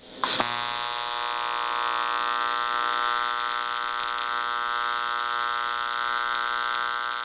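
AC TIG welding arc on 6061-T6 aluminum from a Longevity TigWeld 200EX at about 125 amps: the arc strikes about a quarter second in, then gives a steady, even buzz with a hiss, easing off slightly near the end.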